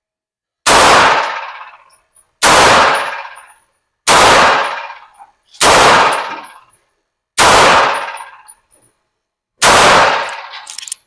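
Six single gunshots from a UTAS USA gun, spaced about one and a half to two seconds apart, each ringing out for about a second after the crack.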